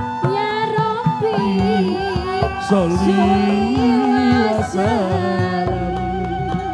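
Music: a wavering melody over frequent drum strokes.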